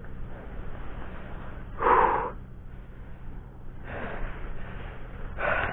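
A man breathing hard, with three heavy exhales into the microphone (about two seconds in, again near four seconds and near the end, the first the loudest), over a steady low hum: out of breath after fighting and landing a pike.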